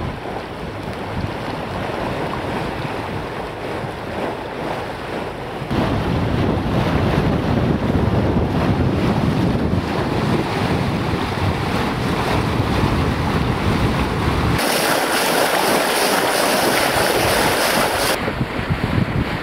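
Wind buffeting the microphone over the rush of water along the hull of a 1907 sailing boat under way. Near the end, for about three and a half seconds, a louder, brighter hiss of the bow wave spraying white water at the bow.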